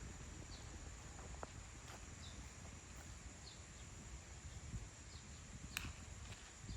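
Faint outdoor field ambience: a steady high insect drone, with short chirping bird calls every second or so and a low rumble. A single sharp click comes near the end.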